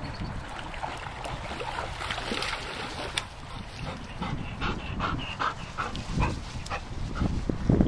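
Doberman puppy whimpering, a run of short high whines and yips in the second half.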